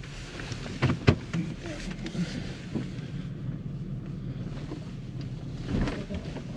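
Nissan Xterra's engine running steadily at low speed over rough off-road ground, with a few sharp knocks and rattles from the truck, about a second in and again near the end.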